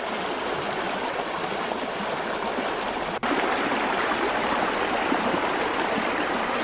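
Shallow jungle stream flowing with a steady rush of water. It cuts out for an instant about halfway and comes back a little louder.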